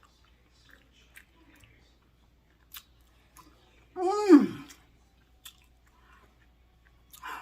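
A person chewing a burger, with small wet mouth clicks scattered throughout. About four seconds in comes a short, loud vocal sound whose pitch slides downward, like an appreciative "mmm".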